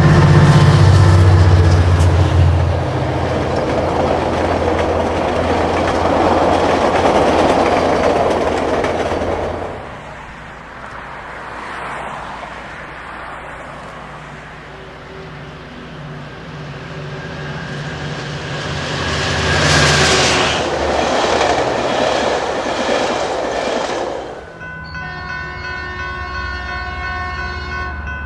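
Diesel commuter trains passing close by: locomotive engine and the rush of the passing cars, loud for about the first ten seconds, dropping away, then swelling again with a second pass. Near the end a multi-note locomotive horn sounds, held as a steady chord.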